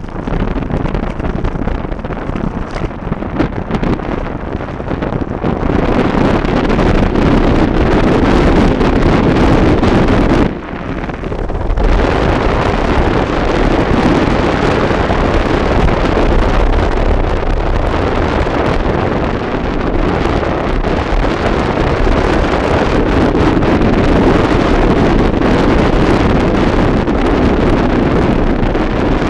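Heavy wind rushing over the microphone of a camera on a bicycle descending fast. It grows louder about six seconds in and drops briefly for about a second near the middle before picking up again.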